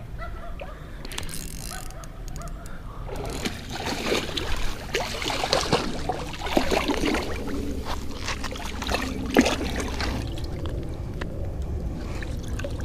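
Water splashing and sloshing in irregular bursts as a hooked channel catfish thrashes at the surface and is grabbed by hand, with one sharp knock a little after nine seconds in.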